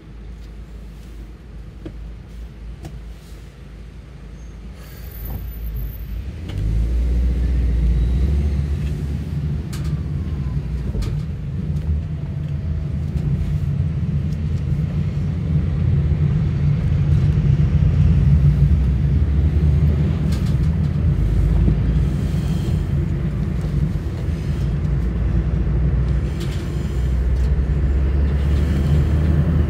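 Car engine idling quietly at a standstill, then pulling away about six seconds in. A low engine hum and road rumble build and carry on steadily as the car drives, heard from inside the cabin.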